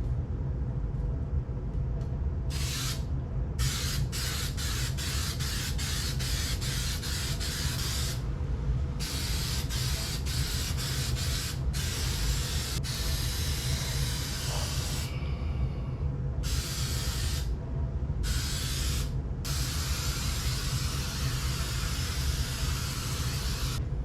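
Aerosol can of 3M Super 77 spray adhesive hissing as it is sprayed, first in a run of quick short bursts, then in longer sprays of a second or several.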